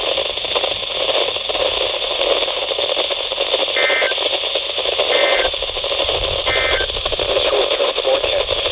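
NOAA Weather Radio static hiss from weak reception, with three short digital data bursts near the middle, evenly spaced about a second apart: the SAME end-of-message code that closes an alert or test broadcast.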